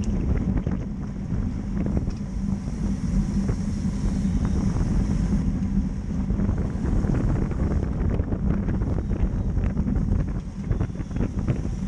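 Wind rushing over the camera microphone and road-bike tyres rumbling on pavement while riding in a racing pack at about 24 mph, with scattered light clicks.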